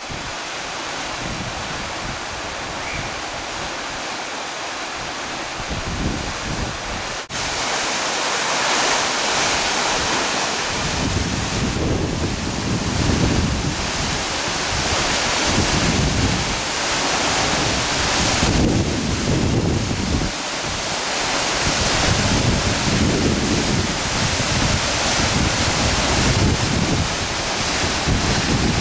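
Steady rushing noise, with wind buffeting the microphone in uneven gusts from about ten seconds in.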